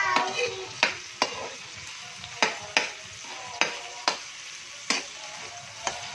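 Slotted metal spatula scraping and knocking against a wok, about nine sharp strokes at an uneven pace, over the steady sizzle of onions and tomatoes frying in oil.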